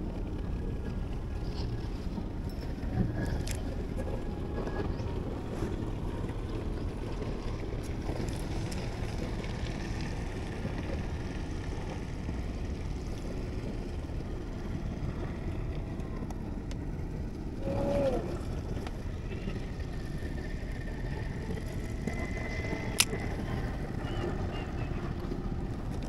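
Steady low rumble over open water, with a short rising squeak about two-thirds of the way in and a single sharp click near the end.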